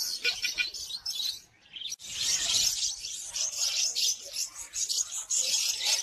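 Many small caged birds chirping and twittering at once, a dense high chorus. It drops away briefly about a second and a half in, then comes back thicker and louder.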